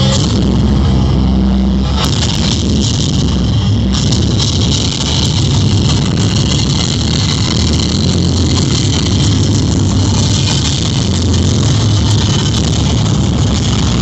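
Very loud playback through a sonidero's street-party sound system, coming out as a dense, steady rumble with a hissy top rather than clear notes.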